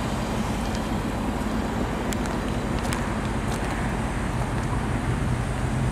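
2018 Mustang GT's 5.0 L V8 idling steadily through its active exhaust, in what sounds like quiet mode, with no revs. A few faint clicks come in around the middle.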